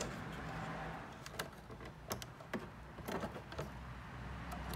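Scattered small plastic clicks and taps as an electrical wiring connector and its wires are handled while being lined up to plug back in.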